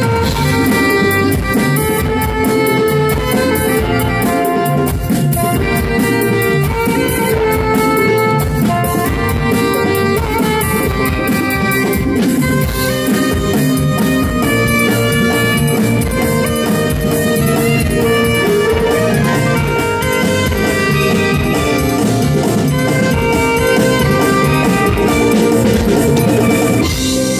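Live band music: a saxophone playing the melody over drum kit, keyboards and electric guitar, with a steady beat.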